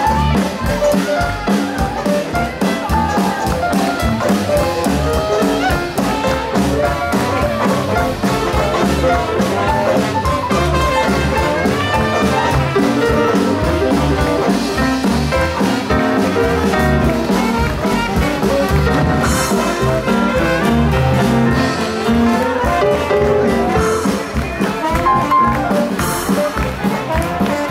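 Live jazz band playing, with trumpet and trombone carrying the tune.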